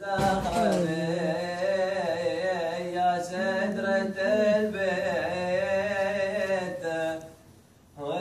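A man singing an Omani shayla, Bedouin chanted poetry, in long wavering held lines, with a steady low tone underneath. The voice breaks off about seven seconds in and starts again just before the end.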